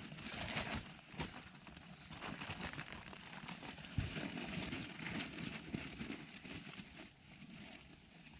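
Crinkling and rustling of camping gear being handled and packed while breaking camp, with scattered soft clicks and a sharper knock about four seconds in.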